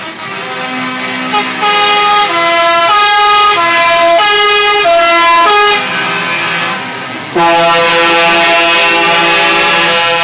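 Truck's musical air horn playing a tune: a run of short notes stepping up and down, then one long held blast near the end.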